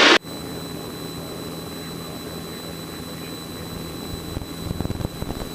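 Steady drone of a single-engine light plane's piston engine and propeller inside the cockpit during the climb, with a faint steady whine over it. The drone grows uneven and rumbly over the last second.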